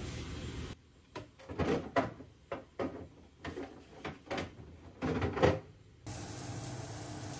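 A string of short knocks and clatters, like things being handled and set down, spread over about five seconds with the loudest near the end. A steady low hum runs before and after them.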